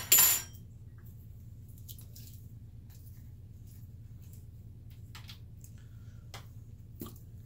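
Condiment bottles being handled and opened at a kitchen counter while sauce is mixed: a short loud hiss right at the start, then a few faint clicks and taps of caps and bottles over a low steady hum.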